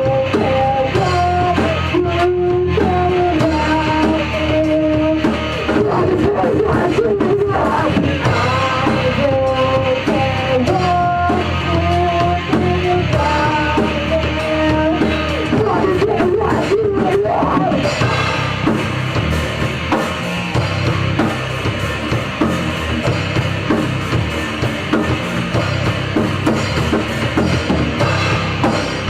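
A rock band playing live in rehearsal: drum kit and electric guitar, loud and steady. A wavering melody line runs on top for the first half or so, then drops out and the band plays on.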